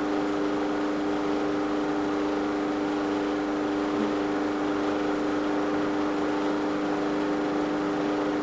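Steady background hum: one strong low tone with a few fainter tones above it, over a soft even hiss.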